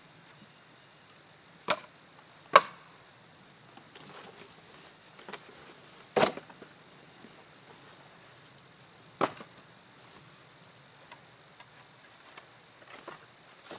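Split mixed-hardwood firewood knocking as pieces are set down onto a woodpile: four sharp wooden clunks, two close together near the start, one in the middle and one later, with lighter taps of wood on wood in between. A faint steady high-pitched hum runs behind.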